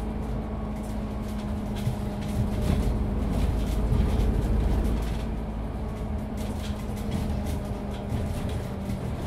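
Isuzu Citiport 18 articulated city bus under way, heard from on board: a steady low engine drone that grows louder a couple of seconds in and then eases back, with light rattles and ticks.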